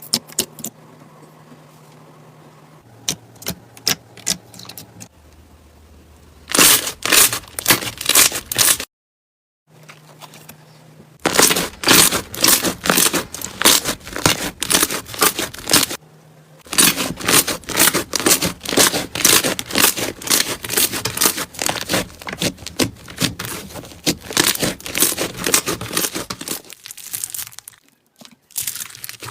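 Slime being squeezed and pressed, giving dense rapid crackling and popping. It comes in separate takes: a few sparse clicks at first, then loud crackling runs broken by short, abrupt gaps.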